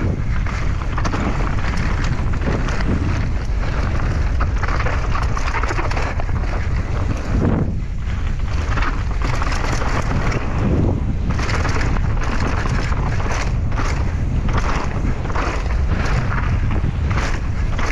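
Mountain bike descending a rough downhill track, heard from a helmet-mounted action camera: heavy wind noise on the microphone with frequent knocks and rattles from the bike over bumps.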